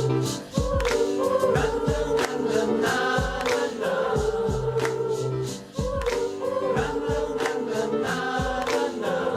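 A cappella pop-up choir singing layered, held vocal parts with a low bass line, over mouth percussion and hand percussion keeping a steady beat.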